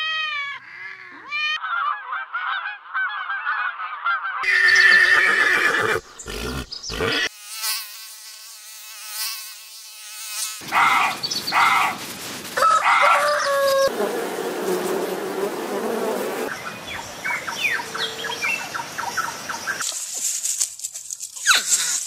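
A run of short animal sound clips cut one after another, starting with a kitten's brief meow. Varied calls and noises follow, with an abrupt change every few seconds.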